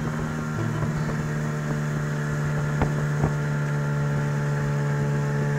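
Golfstream (Parsun) T8 BMS 8-horsepower two-stroke outboard motor running at a steady speed, pushing an inflatable boat while being run in. Two short knocks come about three seconds in.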